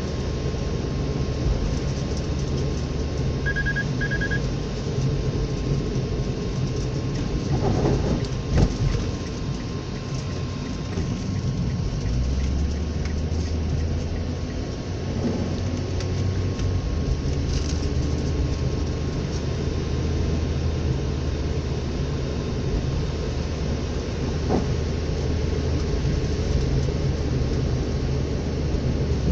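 Steady in-cabin drone of a vehicle driving on a wet road: engine hum and tyre noise. Two short electronic beeps come a few seconds in, and a single thump at about eight and a half seconds.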